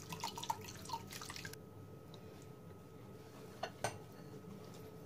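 Water dripping from wet chena in a muslin cloth into the strainer and bowl below, a quick run of drops that stops about a second and a half in. Two faint clicks follow later.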